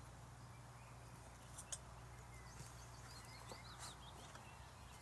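Faint birds chirping in short calls, with two sharp clicks a little past a second and a half in, over a steady low rumble.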